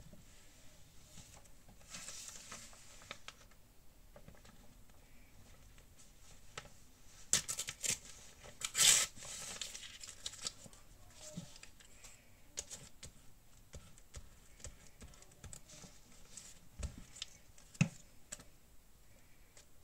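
Paper handling at a craft desk: soft rustling with a few short, sharp peeling and tearing sounds as a white backing is peeled off a sticker, the loudest about nine seconds in, then small clicks and a couple of light taps near the end.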